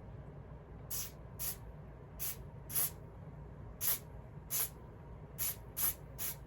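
A hand spray bottle squirted in about nine short, quick hissing bursts, unevenly spaced, onto the wig's lace.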